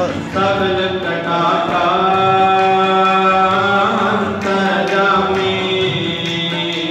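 Sikh kirtan: a harmonium playing long sustained notes under a male voice singing a drawn-out melodic phrase of a Gurbani hymn, with pitch glides on the held vowels.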